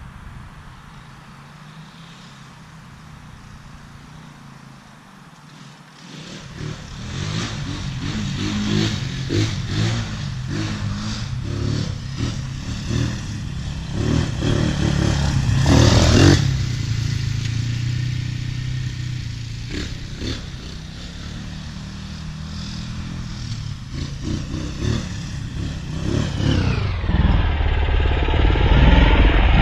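Chinese 250cc ATV engine running under way, quieter for the first six seconds, then louder with the revs rising and falling, along with rattling clatter.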